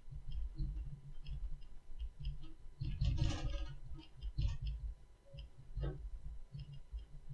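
Light, irregular clicking and creaking of a room and its fittings shaken by a small earthquake, over a low rumble, with a louder rattle about three seconds in.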